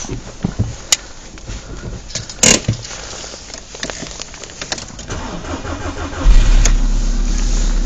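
Skoda Fabia II's 1.6 CFNA four-cylinder petrol engine being started from cold at −16 °C: a few clicks and a thud, then about a second of starter cranking before the engine catches suddenly and runs steadily at a fast cold idle.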